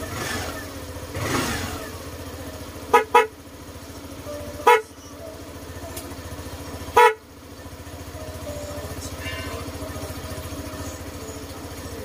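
Short beeps of the Suzuki Burgman Street 125 scooter's horn, tested from the handlebar switch: a quick double beep about three seconds in, then two single beeps a second and a half and two seconds apart, over a steady low hum.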